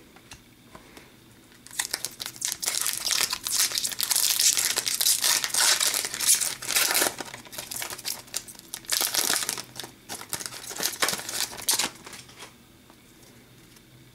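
Foil wrapper of a hockey card pack crinkling as it is handled and torn open, then rustling as the cards are slid out. It starts about two seconds in and stops about ten seconds later.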